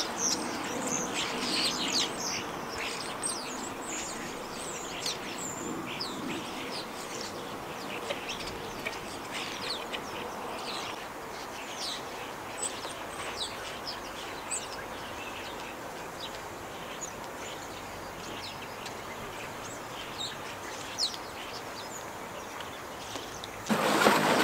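A flock of small birds perched on a yacht's mast and rigging, chirping and twittering: many short, high, overlapping calls over a steady background hiss. Near the end comes a louder rustle of sailcloth being handled.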